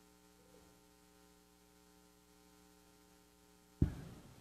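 Faint steady electrical mains hum. Near the end comes one sharp knock as the chalice is set down on the altar table.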